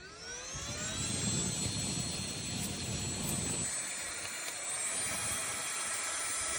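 Handheld turbo fan's small high-speed motor spinning up with a rising whine, then running at a steady high-pitched whine over a rush of air. About two thirds of the way through, the whine steps up a little in pitch.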